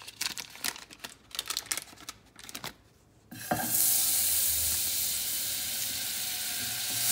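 Light clicks and rustling, then about three and a half seconds in, sticks of salted butter hit a hot pot and start sizzling loudly and steadily: the pot is hot enough to melt them at once.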